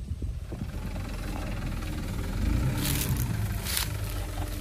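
Mitsubishi truck's diesel engine running steadily as the truck crawls over rough field ground, with two short bursts of hiss about three and four seconds in.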